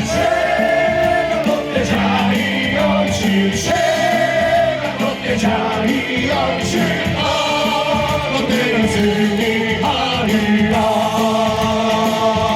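Baseball cheer song playing loud over stadium speakers, with many voices singing the melody together.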